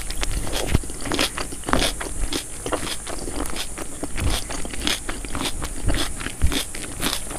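Close-miked eating sounds: chewing a mouthful of mutton biryani, with many short wet mouth clicks and smacks, and fingers scraping through the rice on the plate.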